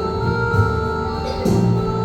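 Music with held chords and a bass line over keyboard accompaniment; the chords change about three-quarters of the way through.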